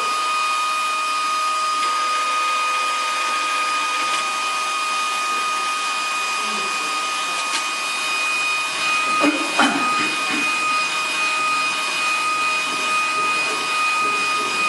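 Mini UV LED flatbed printer running as it prints: a steady rushing hum with a constant high-pitched whine, and a brief clatter about two-thirds of the way through.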